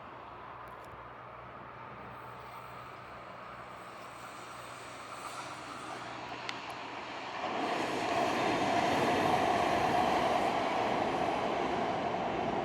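A SIG high-floor tram running on its track and drawing near. Its running noise builds slowly, then grows much louder about halfway through and stays loud.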